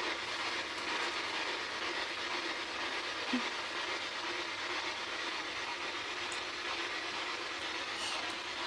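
Radio static: a steady hiss from a radio that is running as a ghost box, with a brief low blip about three seconds in.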